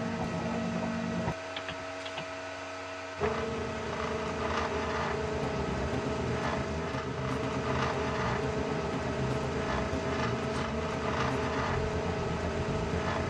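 Stepper motors of a small CNC milling machine driving its axes with the spindle off: a steady pitched whine. A little after the start it drops to a quieter hum for about two seconds, then resumes at full level as the next move begins.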